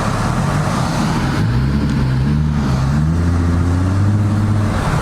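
Car engine accelerating: its note rises about a second and a half in, then holds steady before easing off near the end, over steady road noise.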